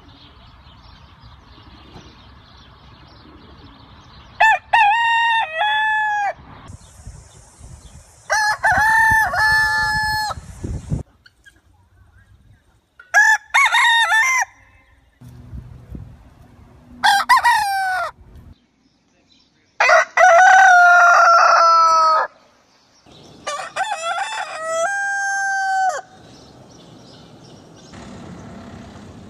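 Roosters crowing one after another, six crows in all, each a drawn-out cock-a-doodle-doo of one and a half to two and a half seconds. The fifth crow, about two-thirds of the way in, is the loudest, and the background hiss changes abruptly between crows.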